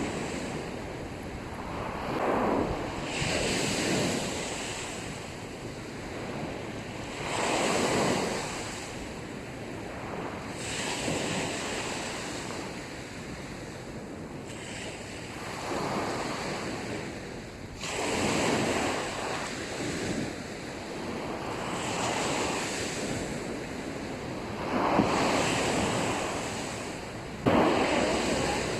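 Sea waves washing onto a sandy beach, swelling and breaking in surges every few seconds, with a sharper, louder break near the end.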